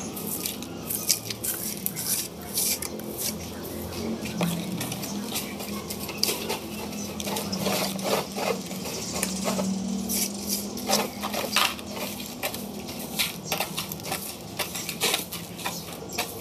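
Broom sweeping a dusty concrete floor: irregular scratchy strokes of the bristles scraping across the concrete, several a second.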